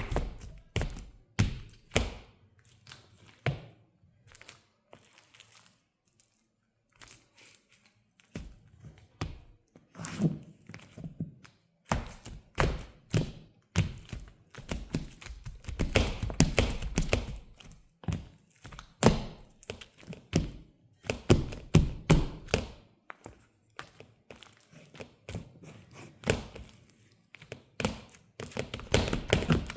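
Footsteps in high-heeled mules stepping in crushed banana: irregular thunks and taps of the shoes on the floor, with sticky sounds as the soles press into and pull off the banana. There is a few-second pause early on, and faster clusters of steps later.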